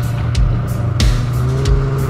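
Snowmobile engine running steadily as the sled rides along the trail, with background music over it.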